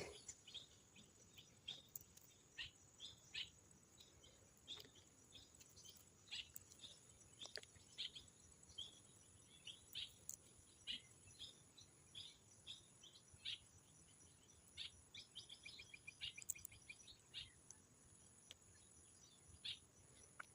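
Faint bird chirps: short, high calls, roughly one or two a second, with a quick run of chirps about three-quarters of the way through.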